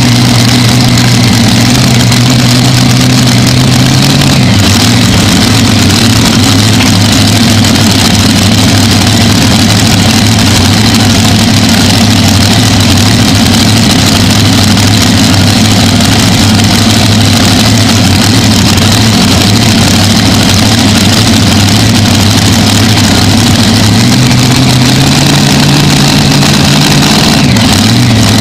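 Supercharged engine of an Unlimited-class pulling tractor idling very loudly right beside the microphone, held steady before the pull. Its idle note shifts slightly about four seconds in and again near the end.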